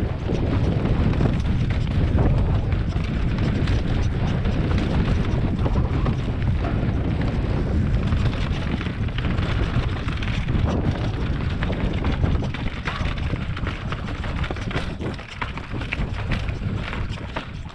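Wind buffeting the microphone over the rattle of a mountain bike rolling down a rocky dirt trail, tyres crunching over stones and the bike clattering with many small knocks. It eases somewhat near the end as the bike slows.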